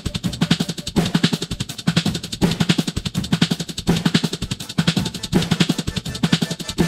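Background music: a drum-led track with a fast, steady beat and a repeating bass note.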